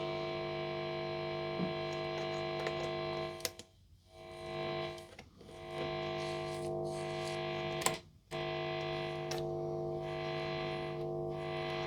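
Mains hum from an SX Standard Series Stratocaster's single-coil pickups through a guitar amp: a steady buzz with many overtones that cuts out briefly a few times. The owner judges this hum to be just the normal sound of a Strat's single-coil pickups, not a fault.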